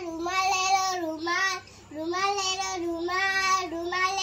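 A child calling out loudly in a drawn-out, sing-song voice, like a street vendor's cry, in about four long held calls.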